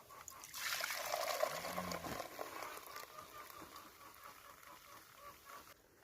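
Milk streaming and splashing into a pail during milking, loudest in the first two seconds and then fading, with a brief low hum about a second and a half in.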